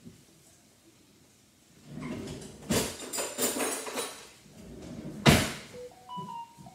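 Knocks and rattles of things being handled, then one loud bang just after five seconds in. Near the end comes a short electronic notification tone of a few stepped notes from a Samsung Galaxy S20 phone.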